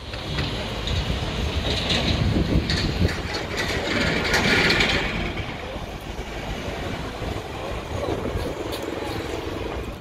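A vehicle passing with a rattling clatter, growing louder to a peak about halfway through and then fading.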